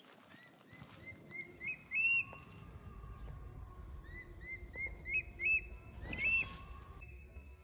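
A bird calling in three runs of short, shrill, upward-hooked notes; each run speeds up and grows louder to a final loud note.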